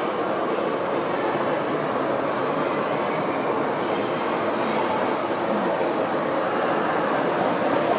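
O gauge model diesel locomotive and coal wagons running along the track, a steady rumble of wheels on rail.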